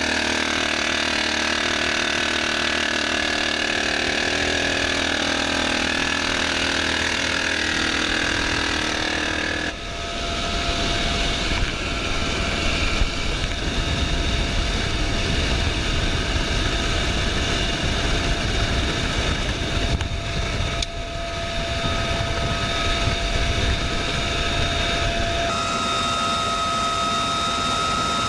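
Steady drone of a UH-1Y Venom's twin turbine engines and rotor heard from inside the cabin at the open door, with steady whines over a deep rumble. The sound changes abruptly about ten seconds in and again near the end.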